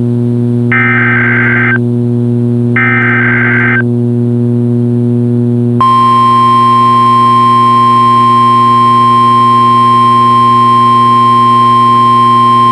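NOAA Weather Radio Emergency Alert System test signal. Two one-second bursts of SAME digital header data screech about a second apart. About two seconds later the steady 1050 Hz warning alarm tone comes on and holds unbroken. A steady low electrical hum runs underneath throughout.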